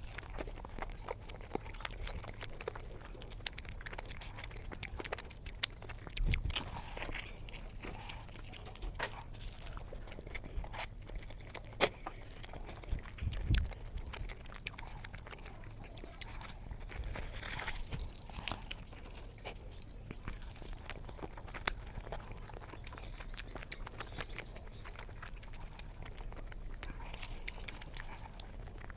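Close-up eating sounds: a person chewing and biting into flatbread dipped in paneer butter masala, with many irregular wet smacks and crisp clicks. A steady low hum underneath.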